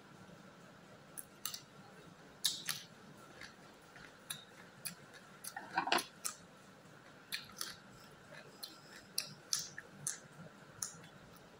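Crisp crunching and mouth clicks of a raw Thai eggplant being bitten and chewed, as scattered short sharp snaps with a louder cluster about halfway through.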